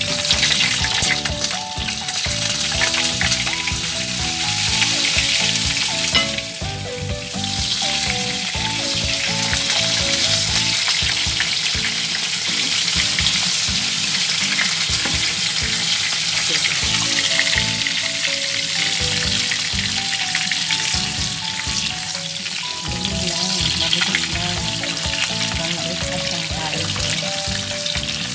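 Hot dogs frying in oil in a pan: a loud, steady sizzle that starts suddenly as they go in, while they are turned with a wooden spatula. Background music plays underneath.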